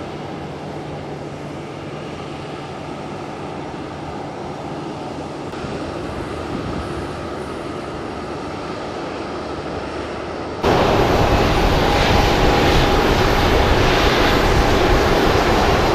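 Stewart & Stevenson GT35 towbar aircraft tug's engine running steadily as it drives off pulling its empty towbar. About ten and a half seconds in, a sudden jump to a much louder, steady rushing noise with a thin whine from a jet airliner's engines running close by.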